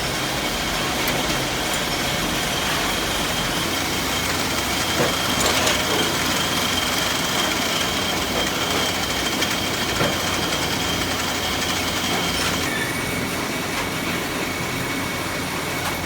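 Steady machine noise in a fan-rotor workshop, with a thin high whine that stops about 13 seconds in.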